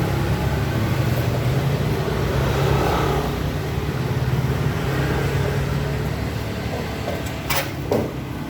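A motor vehicle's engine running steadily at idle, with two sharp knocks near the end.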